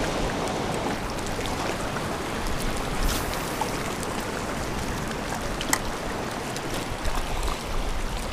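Small waves washing and trickling against lava rocks at the water's edge, a steady rush. Two sharp clicks stand out, about three and six seconds in, and a low rumble comes and goes near the end.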